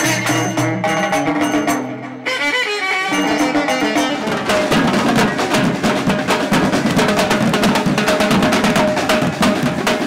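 Moroccan folk ensemble playing, with a string instrument carrying the tune over hand drums. After about two seconds it gives way to a street drum troupe pounding large marching drums with sticks in a dense, fast, steady beat.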